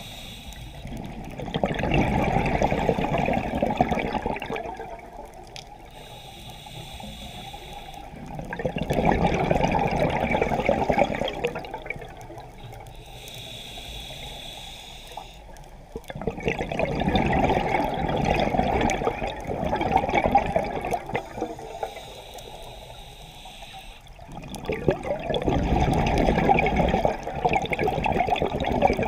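Scuba diver's breathing through a regulator, heard underwater: four long bursts of rushing, bubbling exhaled air about every eight seconds, with a quieter hiss between them.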